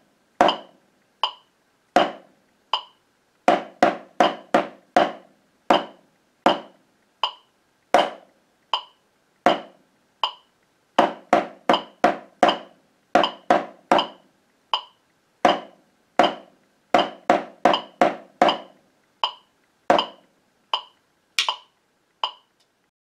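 Wooden drumsticks striking a drum practice pad, playing a simple rhythm of quarter, eighth and half notes along with a metronome clicking at 80 beats per minute. The playing stops about a second before the end.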